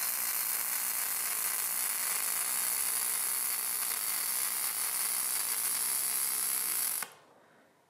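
MIG brazing arc from an EWM Picomig 225 running 1 mm copper-silicon wire on galvanized steel sheet: a steady hiss that cuts off suddenly about seven seconds in as the arc is stopped.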